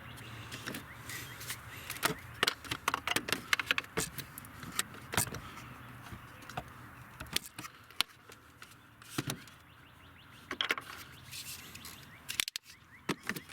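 Irregular clicks, knocks and rattles of plastic parts and tools being handled while the cooling fan module is worked loose in the engine bay, busiest in the first half and again near the end.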